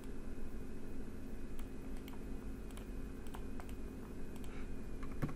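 Scattered clicks of a computer mouse and keyboard, about eight sharp separate clicks, the strongest near the end, over a steady low hum.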